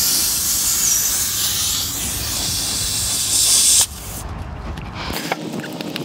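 Pressurised air hissing out of a car tire through the freshly reamed puncture hole, cutting off suddenly about four seconds in.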